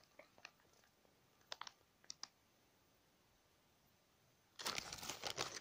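A few faint clicks and taps from a plastic soft-bait package being handled, then about a second of plastic packaging crinkling near the end.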